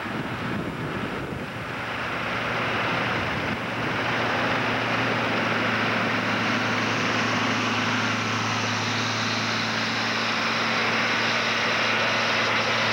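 Tracked Snow-cat's engine running as it plows snow with its front blade and comes up close, a steady low hum under a dense rushing hiss, growing louder over the first few seconds and then holding. Wind buffets the microphone at the start.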